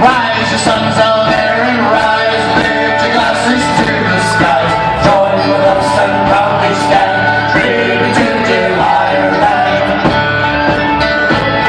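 Live Irish folk band playing an upbeat tune through a PA, loud and steady throughout. Fiddle, banjo, mandolin, acoustic guitar, bodhrán and drum kit play together, with some singing.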